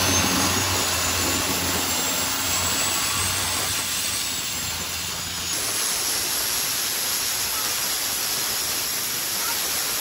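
Longtail boat's turbocharged Isuzu inline-four diesel running at speed, with a low engine hum, a faint high whine rising slightly, and the hiss of wind and water spray. About halfway through the engine hum drops away and a steady hiss of wind and spray is left.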